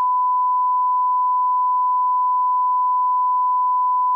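Electronic test tone: one pure, steady beep held at a single unchanging pitch.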